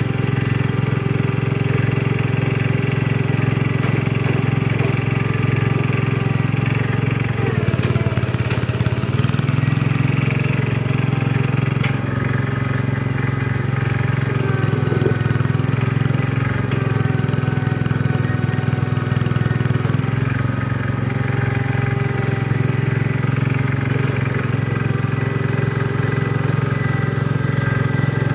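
1974 John Deere 140 garden tractor's engine running steadily while the tractor pushes dirt with its front blade. Its pitch sags briefly about eight seconds in, then recovers.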